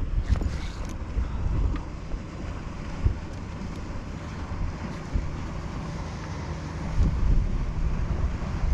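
Wind buffeting the microphone, with water lapping against a kayak and a few short ticks.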